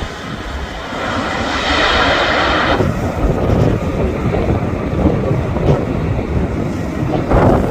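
Strong gusty wind buffeting the microphone, with the rumble of a jet airliner's engines in it; the noise grows stronger for a couple of seconds about a second in, then settles, and surges again near the end.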